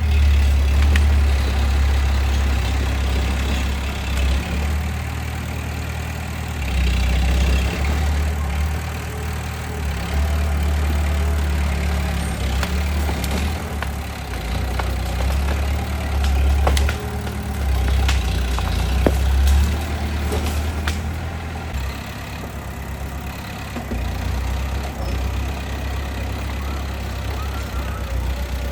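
Bulldozer's diesel engine running, its low rumble rising and falling every few seconds as the load changes, with a few sharp knocks.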